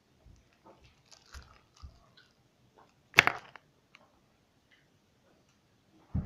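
Teeth biting at a hard Cry Baby sour gum ball: small crunching clicks, then one sharp crack about three seconds in.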